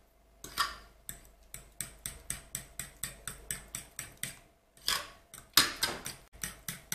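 Spoon beating eggs into yogurt in a glass bowl, clicking against the glass about three times a second, with a few louder knocks.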